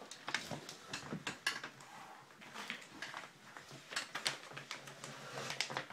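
Irregular clicks, taps and rustles of things being handled and rummaged through, as catnip is got out of its container.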